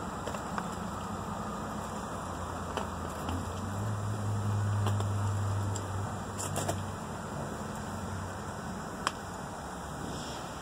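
A passing motor vehicle's low engine hum swells for a few seconds in the middle and fades away, over steady outdoor background noise, with a few light clicks and one sharp click near the end.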